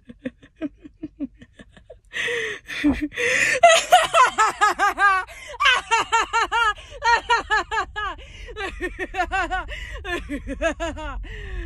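A woman's voice doing a maniacal villain laugh: soft quick chuckles, then sharp breaths in, building into a loud, high-pitched string of rapid "ha" pulses that ends in a long falling tone near the end.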